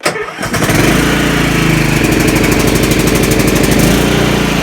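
Troy-Bilt Pony riding lawn mower's engine starting on the key with the choke on. It catches almost at once, then runs steadily.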